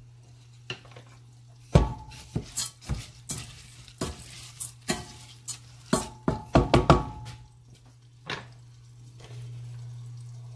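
A spatula stirring raw rice and cardamom pods in a stainless steel pan: a quick run of scrapes and knocks against the pan, some ringing briefly, for about five seconds, over a low steady hum.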